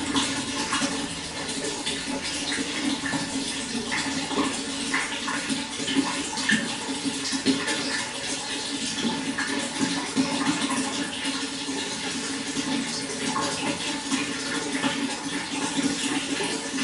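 Running water flowing steadily, with a continuous rush and small splashes and gurgles.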